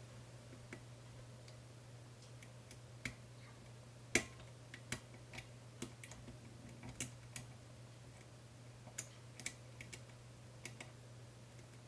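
Faint, irregular small metallic clicks and ticks of a lock pick working the pins inside a 5-pin Medeco cam lock, the loudest about four seconds in. A steady low hum sits underneath.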